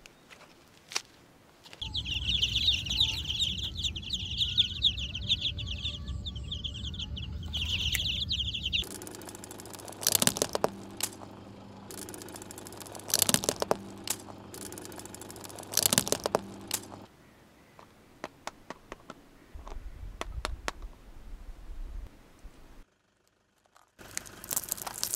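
Chick-like peeping, high and continuous, for about seven seconds over a low rumble. Then three loud sharp cracks a few seconds apart, objects crushed under a car tyre, followed by softer crackling.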